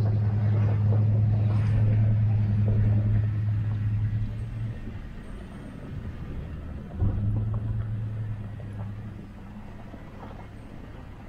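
Jeep Cherokee XJ engine running with a steady low drone that eases off about four seconds in. About seven seconds in there is a sudden knock, and the drone picks up again briefly before fading.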